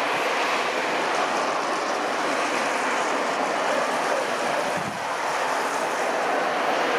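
Airbus A320 jet engines, a steady even rush of noise with a brief dip about five seconds in.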